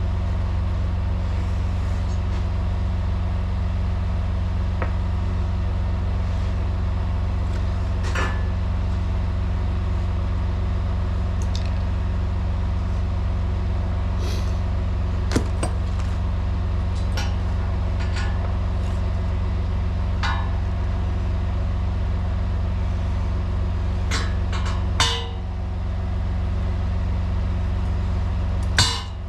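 Semi truck's diesel engine idling steadily, with scattered light clicks and clinks of tie-down strap hardware and two knocks near the end.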